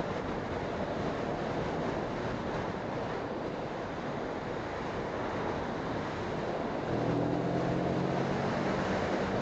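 Wind rushing over the microphone while riding the Moto Morini Seiemmezzo, its 650cc parallel-twin engine under the wind noise. About seven seconds in, the engine's note comes up clearer and holds steady.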